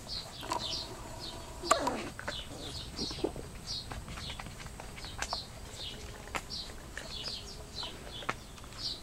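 Dobermann puppies play-fighting on tiles: their claws click and scrabble on the floor, with one brief, loud puppy yelp about two seconds in. Short high chirps repeat steadily throughout.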